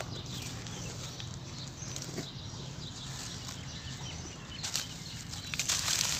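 Hands pressing and scooping dry sand-cement powder in a plastic sieve basket, giving a soft gritty rustle. Louder crunching and crackling of crumbling clumps and falling grains come near the end.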